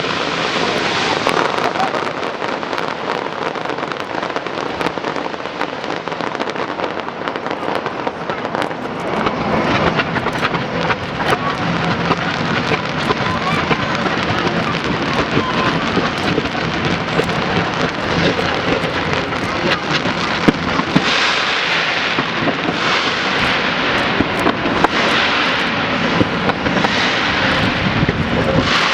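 Aerial fireworks display: a continuous run of crackles and bangs, growing busier about a third of the way in and again later on.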